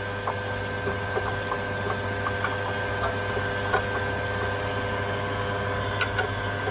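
A steady machine hum with a few light, sharp clicks or taps on top.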